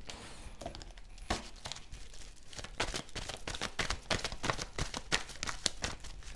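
A deck of tarot cards shuffled by hand: a few scattered card clicks at first, then a quick run of papery flicks and taps from about halfway through.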